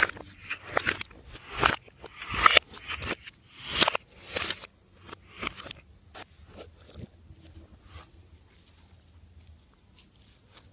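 Glossy slime being squished and stretched by hand, giving sticky crackling pops in repeated bursts that turn fainter and sparser about halfway through.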